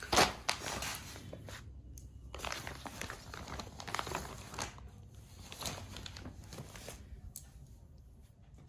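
Crinkling and rustling of a glossy waterproof plastic air-conditioner cover being handled and spread out. The rustles are irregular, loudest just at the start, with a short lull about two seconds in, and grow fainter toward the end.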